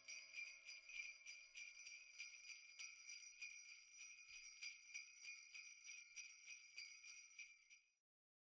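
Sleigh bells shaken in a steady beat of about three a second, the tail of a background music track, fading out near the end to silence.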